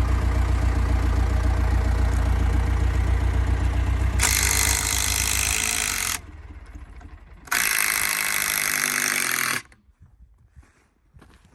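A machine's engine idling steadily, then stopping about five and a half seconds in. Over it come two loud bursts of a power tool, each about two seconds long, the second starting about seven and a half seconds in.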